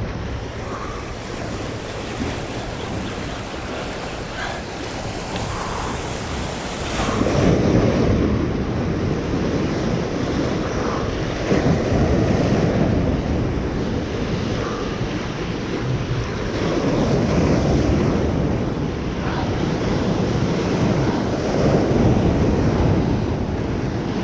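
Surf washing over shoreline rocks, swelling in surges a few seconds apart, with wind buffeting the microphone.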